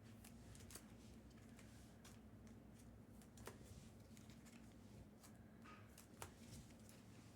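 Faint clicks and slides of trading cards being flipped through by hand, a dozen or so light snaps, over a low steady hum.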